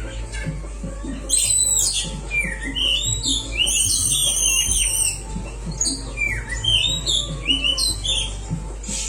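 Oriental magpie-robin (kacer) song from a tutor recording: a continuous run of short whistled and chattering phrases, with notes sweeping up and down, over a steady low hum.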